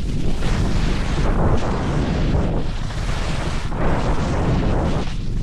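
Wind rushing and buffeting the microphone of a camera carried down a ski run at speed, a heavy rumble that swells and dips every second or so with the snow rushing under the rider.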